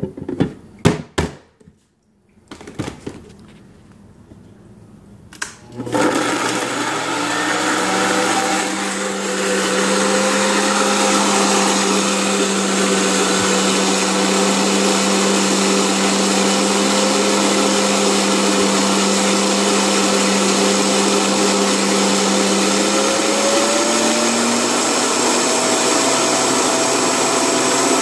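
A few knocks and clicks of handling, then about six seconds in a countertop blender starts and runs steadily, puréeing blueberries with salt and lemon; its motor pitch rises a little about four seconds before the end.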